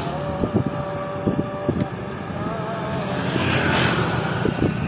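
Small motorbike engines running as scooters ride close by, with wind noise on the microphone. A few knocks sound through it, and a hiss swells about three and a half seconds in, as a scooter passes near.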